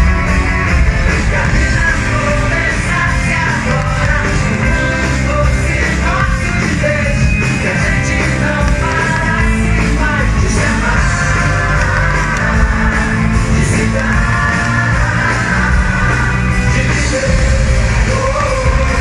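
Loud rock music with a singing voice, heavy in the bass, playing without a break; no separate firework bangs stand out.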